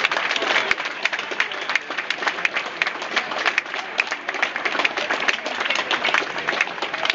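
A crowd applauding, many people clapping steadily and continuously.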